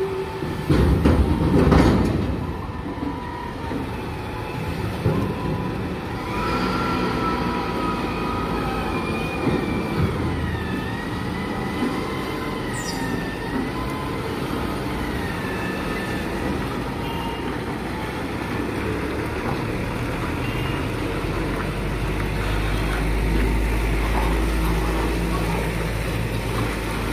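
Container truck's diesel engine running, with a deeper, heavier rumble in the last quarter as the loaded rig pulls forward. Several loud clanks near the start and a wavering high whine through the middle.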